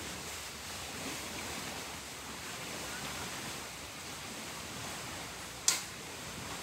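A steady wash of outdoor noise, the hiss of wind or water, broken by one sharp click near the end.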